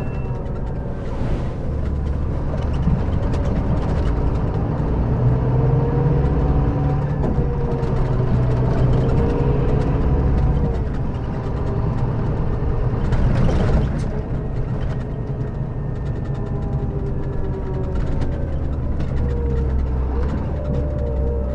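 Scania K400B coach engine running under way, its pitch rising and falling as it pulls and eases off, with a brief rushing noise about 13 seconds in.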